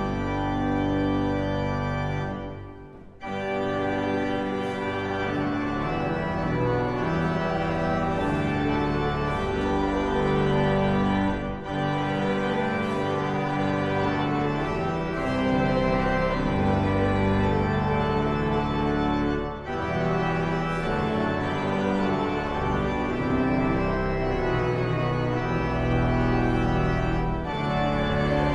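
Pipe organ playing slow, sustained chords, with a short break about three seconds in and brief pauses between phrases later.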